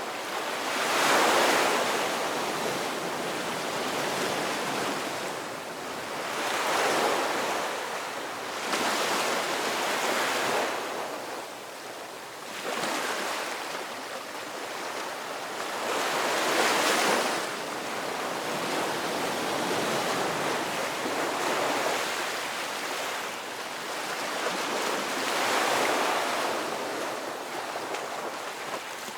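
Ocean surf: waves breaking and washing in, the rush swelling and falling away every several seconds over a steady hiss of water.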